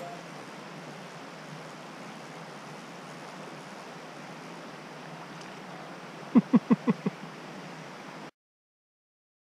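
Mountain stream water running steadily. About six and a half seconds in comes a quick run of five short, loud sounds, each falling in pitch. Everything cuts off suddenly near the end.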